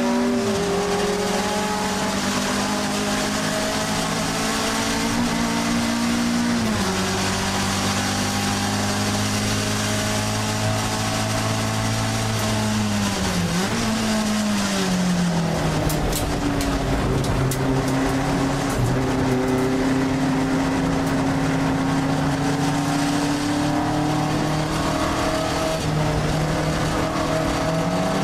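Alfa Romeo 1750 GTV's twin-cam four-cylinder engine under race load, heard from inside the cabin. Its note climbs and drops sharply at each upshift, about a second in, again near six seconds and at the end. Around halfway it falls and then jumps back up as the car brakes and changes down.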